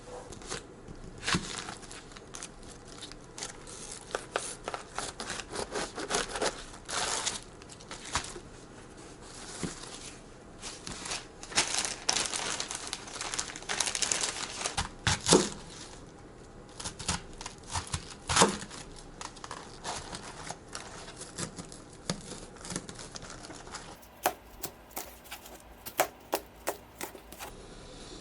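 Kitchen handling noise: crinkling, rustling and tearing with many sharp clicks and knocks scattered throughout, the loudest knocks at about 15 and 18 seconds in.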